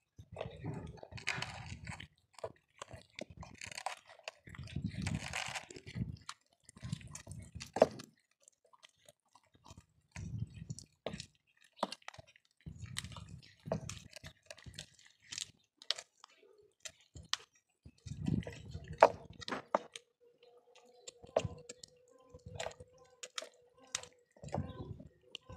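Cats gnawing raw bones: irregular bouts of wet chewing and cracking crunches, broken by short pauses. A faint steady hum comes in about three-quarters of the way through.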